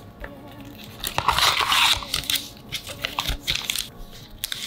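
Paper and cardboard packaging of an Apple MagSafe charger rustling and crinkling as it is handled and the paper wrap unfolded. The rustle is loudest for about a second starting a second in, with scattered small clicks. Soft background music runs underneath.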